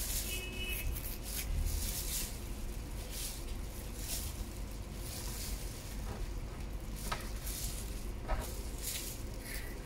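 Knife slicing through roast Peking duck with its crisp skin on a cutting board: repeated short scraping strokes about once a second, over a steady low rumble.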